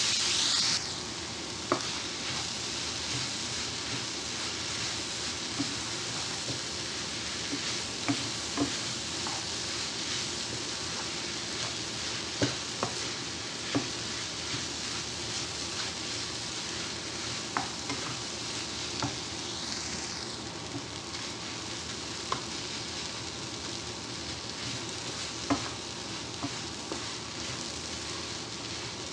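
Chopped onions, carrots, green pepper and tomato sizzling as they fry in a non-stick frying pan, stirred with a wooden spatula that knocks sharply against the pan every few seconds. The sizzle is louder at first and eases about a second in.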